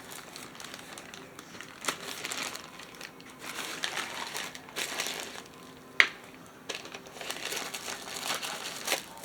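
A packaging bag crinkling as it is handled and opened, with irregular rustles and a couple of sharp clicks, the loudest about six seconds in.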